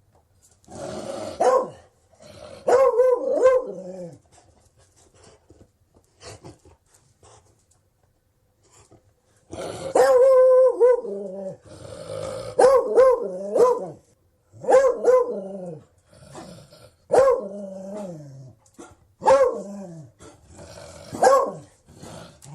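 Beagle barking and baying repeatedly. Each call lasts about a second and drops in pitch at the end. There are two calls at first, then a pause of a few seconds with faint clicks, then a call about every two seconds.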